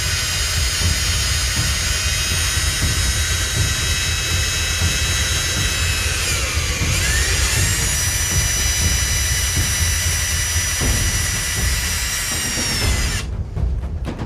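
Cordless drill with an 1/8-inch bit boring through a painted wooden tray: a steady motor whine that dips in pitch about seven seconds in, then picks back up. The drill stops about a second before the end.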